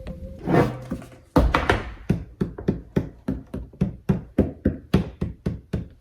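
A thump, then a fast, even run of sharp knocks or taps, about four a second, starting about a second and a half in.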